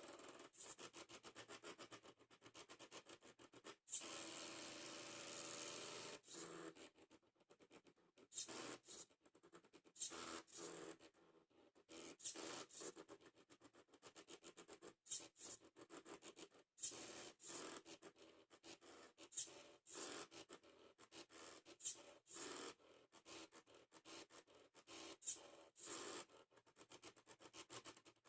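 Small stepper motors from old CD/DVD drives driving an Arduino mini CNC plotter, faint, in quick stop-start moves with frequent sharp clicks. About four seconds in there is one longer, steadier run.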